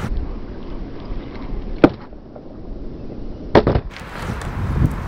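Cruiser skateboard rolling on asphalt with a low wheel rumble, broken by a sharp, loud clack of the board about two seconds in and a quick double clack about three and a half seconds in: the pop and landing of a flip trick.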